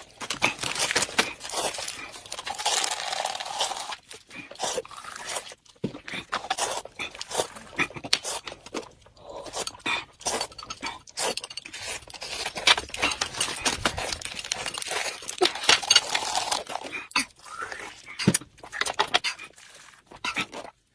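Tableware clinking and scraping at a meal table, many short sharp clinks, with longer hissing stretches about a second in and again around fifteen seconds in.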